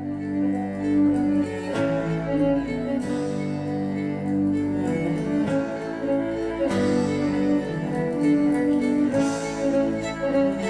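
Instrumental passage of a live band: violin and cello playing sustained melodic lines over guitar and bass, the chords changing about 2, 7 and 9 seconds in.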